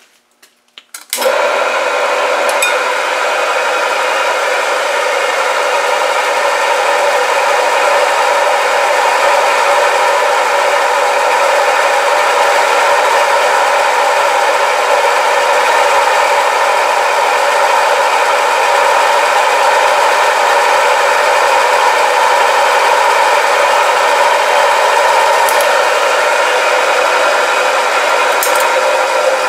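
Milling machine switched on about a second in and running steadily, with a loud hum of several tones, while a drill bit in its chuck is fed down into a metal block held in the vise.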